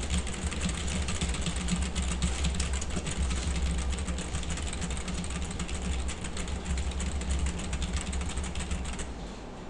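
Rapid, continuous typing on a computer keyboard, a dense stream of key clicks from random keys mashed in quick succession, over a low steady hum. The typing stops near the end.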